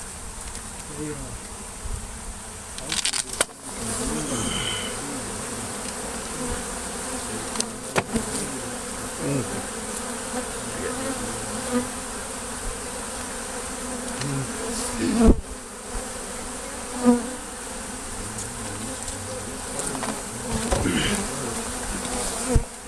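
A swarm of honeybees buzzing steadily around the microphone as their comb is cut out of the colony, with wavering hum tones. A few sharp knocks break in, the loudest about fifteen seconds in.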